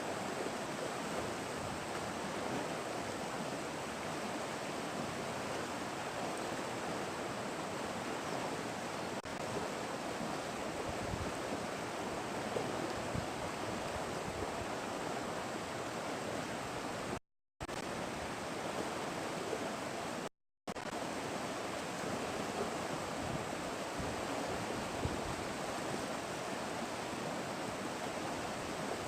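Steady rushing of flowing river water, an even noise with no distinct events. It cuts briefly to silence twice in the second half.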